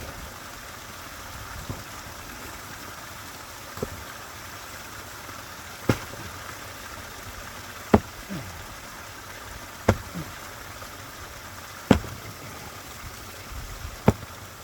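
Sledgehammer blows on thick pond ice, about every two seconds, with steady running water from the pond's waterfall underneath.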